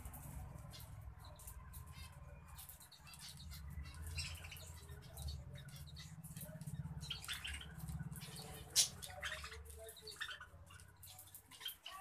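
A flock of budgerigars chirping softly while pecking at seed and greens, with many small scattered clicks and a low rumble underneath; one sharper click about nine seconds in.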